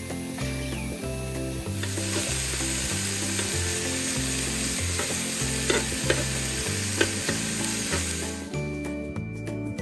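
Salmon, chicken and sliced beef sizzling on an electric hot plate, with a few sharp clicks of metal tongs against the plate while the meat is turned. The sizzling starts about two seconds in and cuts off shortly before the end, over background music with a steady bass line.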